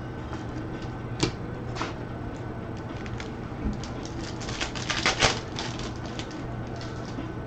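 Football trading cards being handled and flipped through: a string of sharp clicks and snaps, a few single ones early and a dense cluster about five seconds in.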